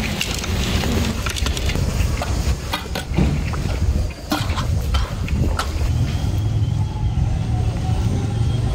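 A steady low rumble with scattered scrapes and clinks of a metal ladle against a large metal cooking pot, as half-cooked rice is tipped in and spread over the biryani masala.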